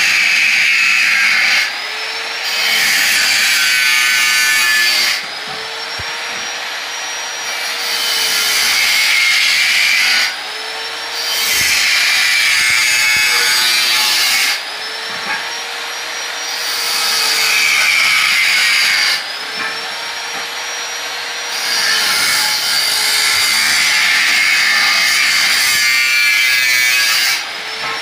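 Electric angle grinder with a cut-off disc cutting through square steel tube, in loud passes of a few seconds each, about six in all, with the motor running free in brief lulls between them and its pitch bending as the disc bites and lets go.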